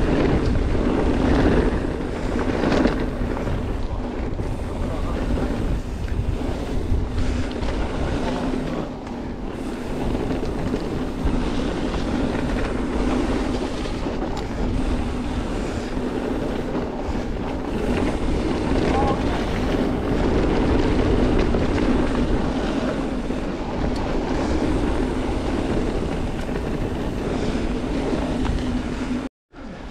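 Wind buffeting a helmet-mounted action camera while riding a mountain bike, with the tyres rolling over the dirt trail; the sound cuts out briefly near the end.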